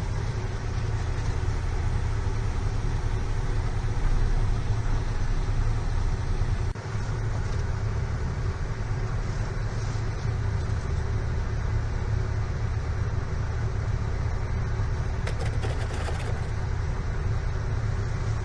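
Steady low motor drone with a brief dip about seven seconds in.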